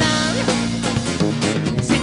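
A live band playing a song.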